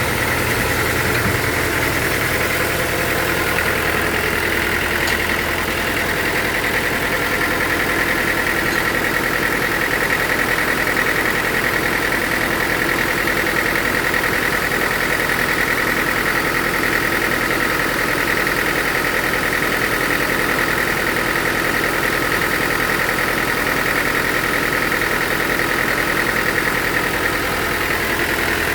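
Sawmill machinery running steadily: a constant engine drone with a steady high whine over it.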